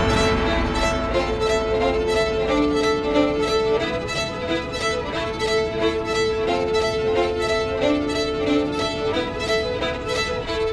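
Background music: a held melody over a steady beat.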